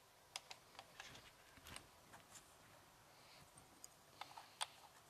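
Faint, irregular small clicks and taps from handling the QySea Fifish V6 Expert underwater drone as its stiff SD-card access cover is worked loose.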